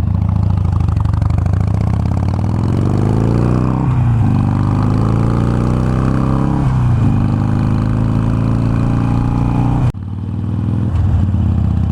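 Harley-Davidson Iron 883's V-twin engine accelerating through the gears. Revs climb, drop at a shift about four seconds in, climb again and drop at another shift about three seconds later, then hold steady. The sound breaks off sharply for a moment near the end and picks up again.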